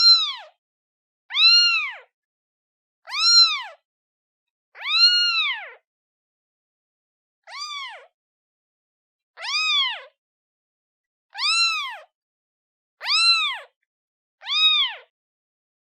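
Newborn kitten meowing for its mother: about nine high-pitched meows, one every one and a half to two seconds, each rising then falling in pitch. One call near the middle is longer, and the next is fainter.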